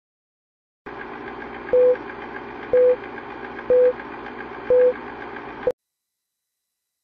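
Film countdown-leader sound effect: a steady mechanical running whir like an old film projector, with four short beeps about a second apart, ending in a brief blip and cutting off suddenly.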